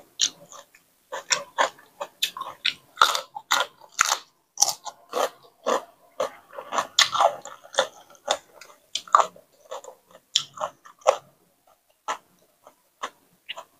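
Close-miked chewing and crunching of a mouthful of papaya salad and raw vegetables, with wet mouth noises: a dense run of crunches that thins out near the end.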